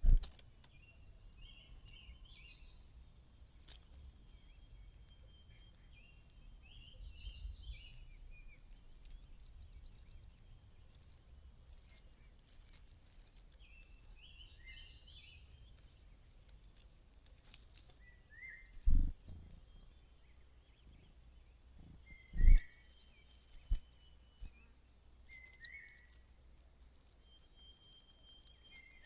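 Small birds chirping in short clusters of high notes, with single shorter calls later on. A few loud low thumps stand out, the loudest at the very start and two more past the middle.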